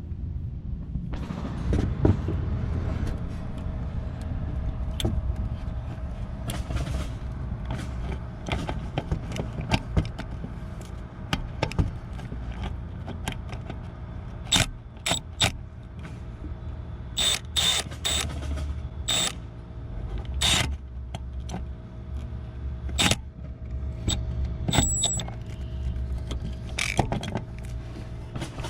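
Scattered metallic clinks and knocks of hand tools and sockets being handled, with a few sharper ringing clanks in the middle stretch, over a steady low hum.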